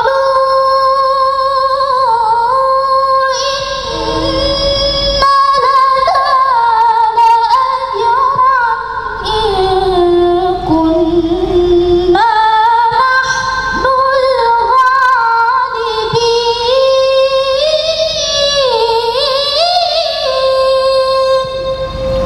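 A woman's voice reciting the Quran in the melodic tilawah style. Long drawn-out phrases with ornamented turns, separated by short breaths. The pitch sinks about halfway through and climbs higher near the end.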